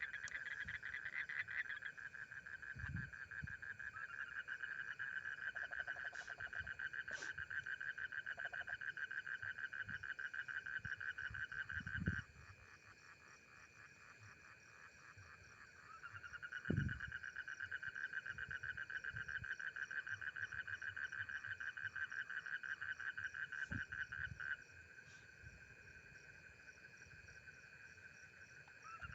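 Frogs calling in a fast, even rattling trill, in two long loud bouts, the first breaking off about twelve seconds in and the second starting about four seconds later and stopping near the end, with fainter calling in the gaps. A steady high insect trill runs underneath, and a few dull thumps sound.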